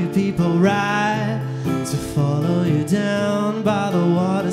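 A man singing a slow song with long held notes, accompanied by acoustic guitar.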